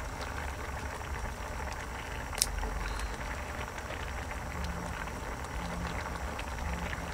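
A pot of spicy seafood simmering with a steady bubbling hiss over a low rumble, with faint scattered clicks and one sharp click about two and a half seconds in.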